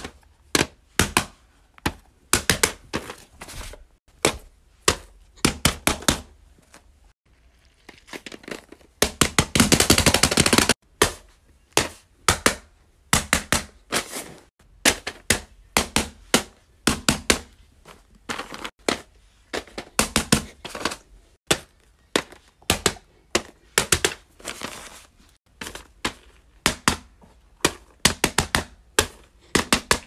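Fingernails tapping and clicking on silicone and plastic fidget toys: quick clusters of sharp taps, several in a row, repeated every second or so. About nine to eleven seconds in there is a denser scratchy stretch of rubbing or rapid scratching.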